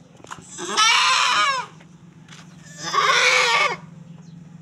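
A goat doe in labour bleating twice, two loud drawn-out cries each about a second long, as she strains to deliver a kid.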